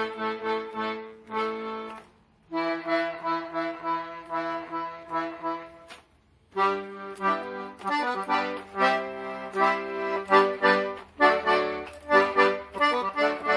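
80-bass accordion played in short phrases of chords and bass notes, with two brief pauses about two and six seconds in; its bass side has just been retuned and now sounds in tune.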